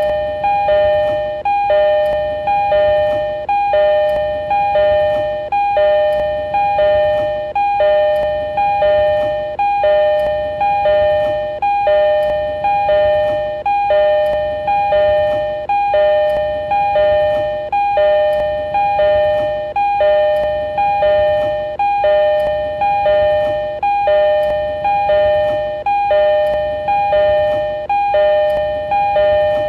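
E231 series train door chime: a two-note ding-dong, a higher note then a lower one, repeated over and over without pause in an endless loop. It is the chime that warns that the doors are opening or closing.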